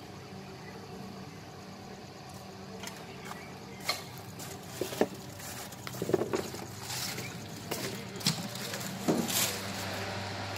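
Footsteps scuffing and knocking over loose wood scraps and debris, irregular and spread over several seconds, with a steady low hum underneath.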